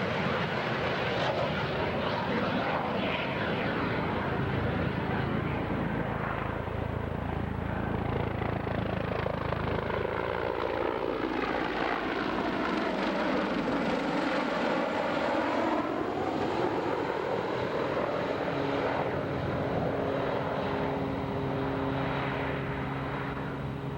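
Airplane engine noise as an aircraft flies past, the sound sweeping in pitch as it passes, then settling to a steadier hum near the end.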